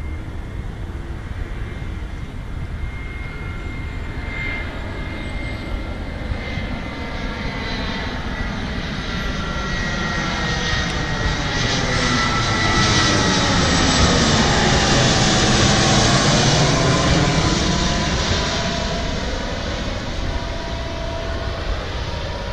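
Jet airliner passing low overhead on approach to land. Its engine noise builds to a peak about two-thirds of the way through and then fades, and its whine drops in pitch as it goes by.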